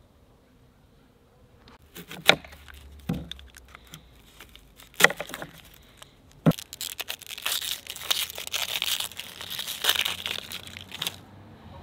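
Knife trimming an onion on a wooden cutting board, with a few sharp knocks. Then the onion's dry papery skin crackles and tears for several seconds as it is peeled off by hand.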